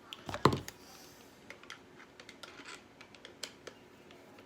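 Light, irregular clicks and taps of plastic and metal parts being handled as a washing-machine drain pump assembly is fitted together, with one louder knock about half a second in.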